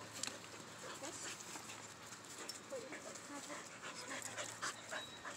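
A dog panting: a quick run of soft breaths.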